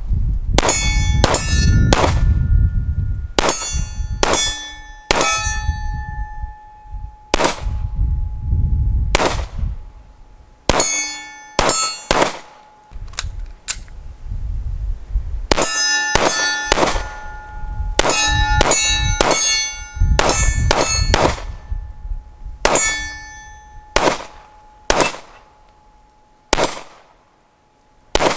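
A SIG Sauer P226 Legion SAO 9mm pistol fired in quick strings of two to five shots, several dozen in all. Steel targets ring out with a sustained metallic ding after many of the hits.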